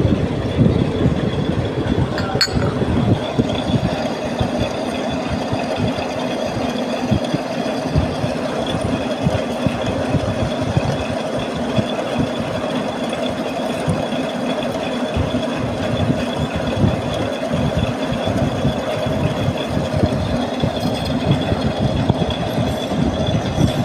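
Metal lathe running steadily while machining a steel shaft, with a constant whine over a continuous fast rattle.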